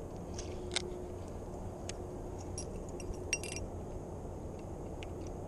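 A few light metallic clicks and clinks from handling a baitcasting reel and spinner lure, with a small cluster of ringing clinks about three and a half seconds in, over a steady low background noise.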